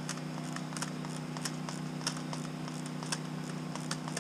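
Steady low hum of the field's generators running, with scattered faint clicks and rustles.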